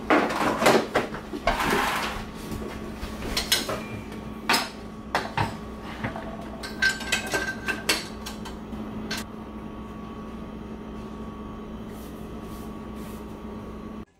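Kitchen utensils and dishes clinking and clattering as they are handled and put away on a countertop, a string of sharp knocks that stops about nine seconds in. A steady hum continues underneath.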